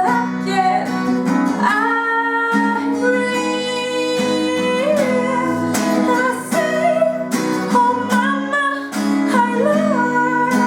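A song sung to acoustic guitar: a voice holding long, sliding notes over plucked and strummed chords.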